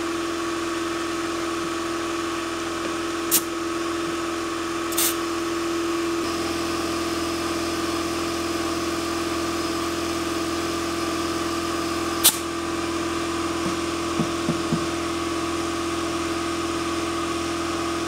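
Air compressor running with a steady hum while a zero-turn mower tire is inflated, with a few sharp clicks about three, five and twelve seconds in.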